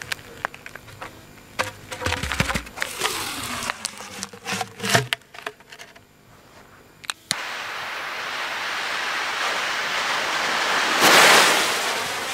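Paper-wrapped aerial firework shell being lowered into a mortar tube: rustling paper, knocks and scrapes, with a hollow tone falling in pitch as the shell slides down. About seven seconds in a steady hiss starts suddenly and swells near the end as the shell's fuse burns.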